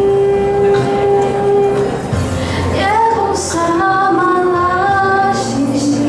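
Young female voices singing through stage microphones: one long held note, a glide upward about three seconds in, then a higher melody moving in steps.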